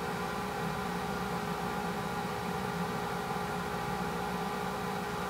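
Steady machine hum with several held tones over a hiss, unchanging in level.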